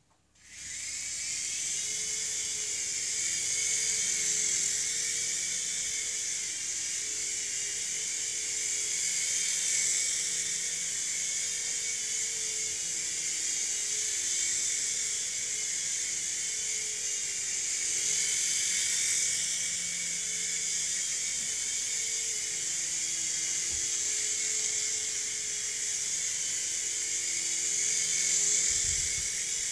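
Revell Roxter toy RC helicopter's small electric motors and rotors spinning up and running as a steady high-pitched whine, swelling and easing slightly every few seconds. A brief low thump near the end.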